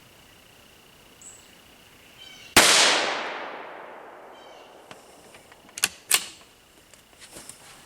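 A single shot from a CZ 457 bolt-action rifle in .22 WMR firing a Hornady V-MAX round: a sharp crack with a fading tail that lasts over a second. Two short clicks follow about three seconds later.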